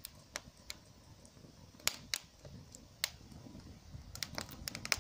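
Not-quite-dry aspen sticks burning in a small stainless-steel wood stove, crackling with irregular sharp pops that come thicker near the end, over a low rumble.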